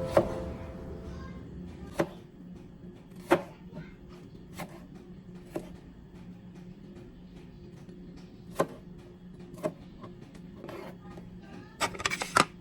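Background music fading out, then scattered light knocks and clicks of things being handled, a quick cluster of them near the end, over a faint steady hum.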